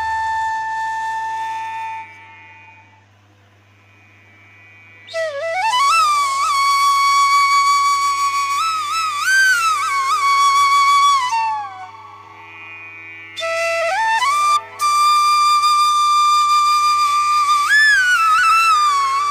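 Background music: a solo flute playing long held notes with slides between them. It fades out about two seconds in and comes back about five seconds in with two long phrases.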